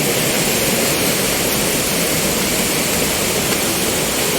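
Steady, even hiss of rushing water.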